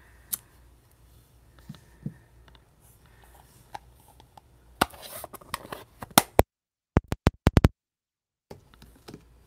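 Quiet handling of stamping supplies on a craft desk: light clicks and taps as a clear acrylic stamp block is lifted off the paper and set down and a plastic ink pad case is picked up, with a cluster of taps about five seconds in. Soon after, the sound drops out for about two seconds, broken by a quick run of sharp clicks.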